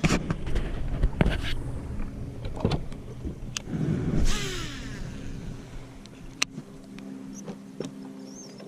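A boat's motor running steadily, with scattered knocks and clicks on board and a short rushing sound about four seconds in.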